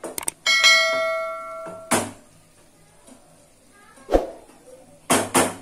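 Mouse-click and bell-chime sound effect of a subscribe-button animation, the bell ringing out for about a second. A few sharp knocks of a spatula against the kadai follow as the chicken is stirred.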